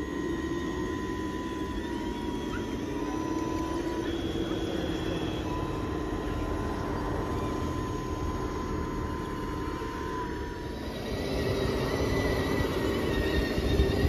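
Small electric motors of scale RC excavators whining as they dig, a thin steady whine that stops, starts and shifts slightly in pitch over a lower drone. About eleven seconds in it changes to a different, steadier motor hum.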